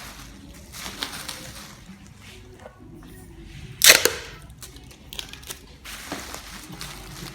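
Faint scattered clicks and rustling, with one loud sharp crack about four seconds in.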